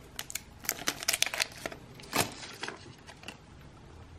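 Light, irregular clicks and taps of small hard parts being handled on a workbench, with a louder knock about two seconds in.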